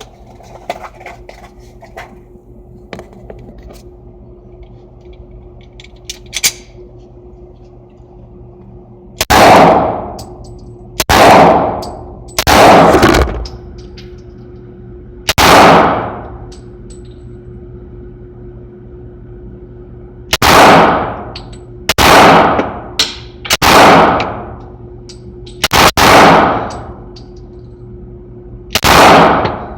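Nine gunshots fired singly at irregular intervals, each loud and sharp with an echoing tail that dies away over most of a second. Before the first shot, a few quiet clicks.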